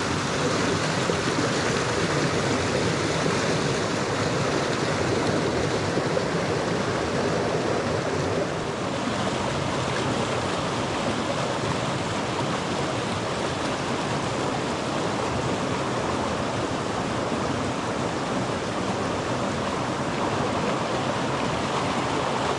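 Small mountain stream rushing steadily over rocks and a little cascade, a continuous even wash of water. The sound turns a little duller about eight seconds in.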